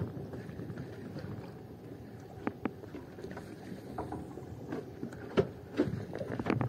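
Sea water slapping and lapping against the side of a small fishing boat, with scattered light knocks and taps against the hull.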